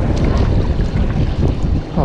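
Wind rumbling on the microphone over a steady wash of sea water against breakwater rocks.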